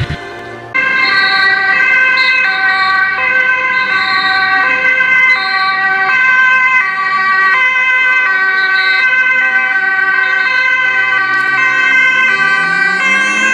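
Two-tone emergency sirens from the police motorcycle escort and ambulance, several overlapping and alternating steadily between a high and a low note, starting about a second in. Near the end an engine note rises in pitch beneath them.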